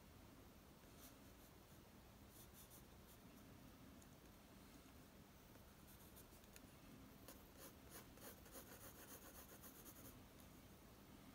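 Faint scratching of a graphite pencil drawing on paper, with a run of quicker, denser strokes about seven seconds in.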